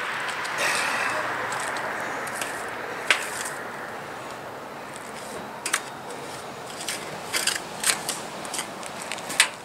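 Short scrapes and clicks of a hand knife working wet hydraulic cement on a chimney cap. They come one about three seconds in, then in a quick cluster through the second half, over a steady hiss that fades during the first few seconds.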